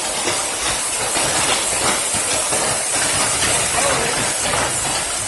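Hail and heavy rain coming down hard in a dense, steady hiss, with a faint clatter of stones striking.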